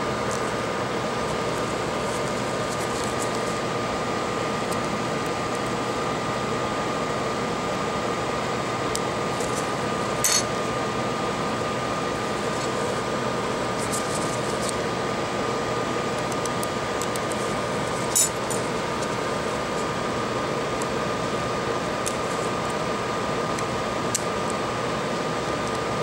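Steady whirring hum of a fan, with a faint even whine, broken by a couple of light metallic clicks, about ten and eighteen seconds in, as tweezers touch the iPad mini's frame.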